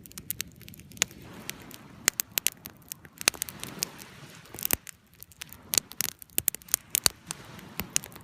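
Campfire crackling with frequent sharp, irregular pops, over a soft wash of waves that swells through the first half.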